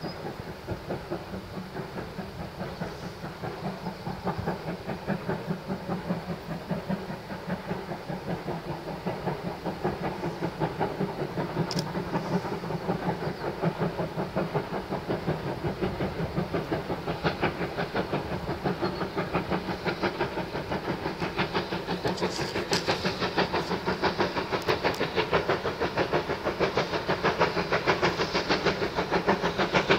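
Steam locomotive approaching under power, its exhaust beats coming in a quick, steady rhythm that grows steadily louder as it draws near.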